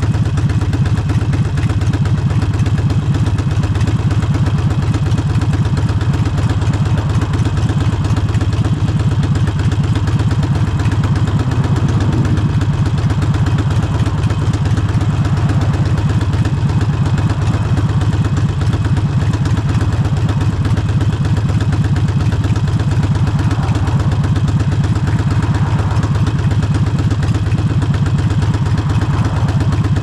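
Harley-Davidson Forty-Eight's air-cooled V-twin running through Vance & Hines exhaust pipes, a steady deep rapid pulse with no big revs or gear changes.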